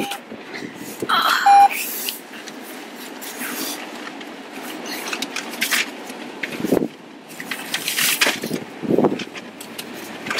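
Rustling and scraping of a fur-trimmed hood and coat brushing close against the microphone, with scattered soft knocks from movement in a car seat. A short electronic beep sounds about a second and a half in.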